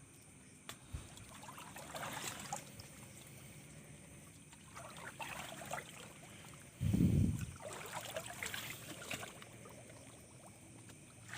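Water splashing and trickling in several short bursts as a fish trap is handled in a shallow ditch, with one dull low thump about seven seconds in.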